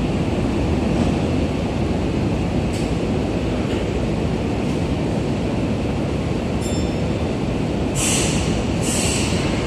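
Tokyu 5050-series electric train standing at an underground platform: a steady low rumble from the train and the station. Two short hisses come near the end.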